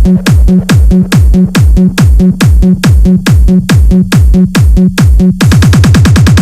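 Electronic dance remix with a kick drum on every beat and a pulsing bass note between the kicks. About five seconds in, the kicks speed up into a rapid drum roll.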